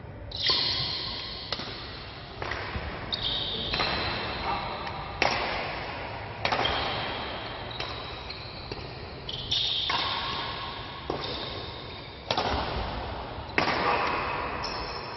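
Badminton rackets striking a shuttlecock back and forth in a rally, a sharp crack about once a second, each hit ringing on in the large hall. High squeaky tones sound between some of the hits.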